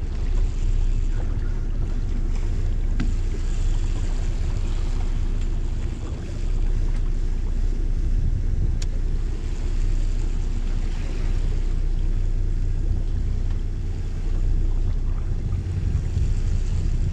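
A fishing boat's engine running steadily: a low, even hum, with wind and water noise over it.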